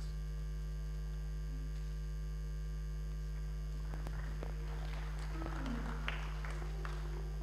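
Steady low electrical mains hum from the sound system, with faint rustles and small knocks about four seconds in as the handheld microphone is picked up and handled.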